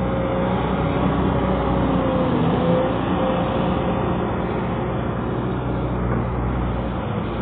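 Excavator's diesel engine running steadily, with a whining tone above it that dips in pitch briefly about two seconds in and then recovers.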